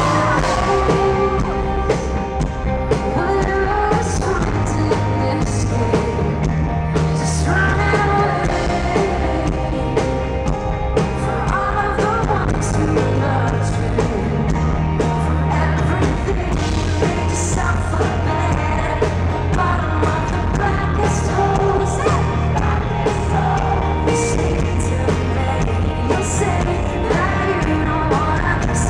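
Rock band playing live in an arena: a woman singing over keyboard, electric guitars, bass and drums with regular cymbal strikes, heard from the audience.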